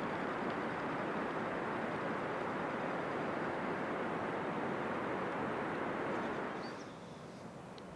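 Portable camp stove burner running with a steady rushing hiss, which dies down about six and a half seconds in as the flame is turned down.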